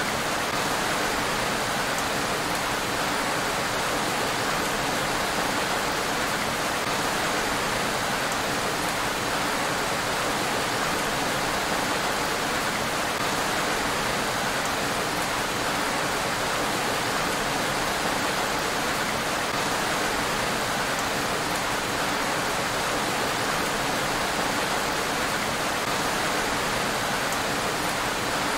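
Steady rain falling on a road: an even, unbroken hiss.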